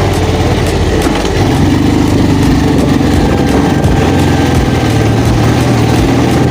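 Motorcycle engine running steadily at low revs, with a slight change in its note about a second and a half in.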